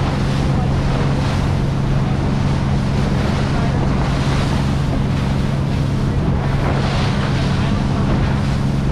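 A boat's engine running steadily with a low drone, under the rush of water along the hull and wind buffeting the microphone.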